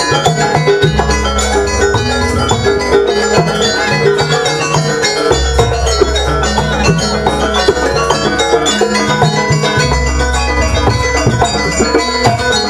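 Live jaranan gamelan music: metal percussion plays quick ringing pitched notes over drumming, with deep sustained gong-like tones underneath.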